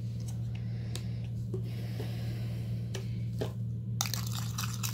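Metal spoon stirring a wet clay face-mask paste in a small glass bowl. A few scattered clicks come first, then quick scraping and clinking of spoon against glass starts about four seconds in. A steady low hum runs underneath.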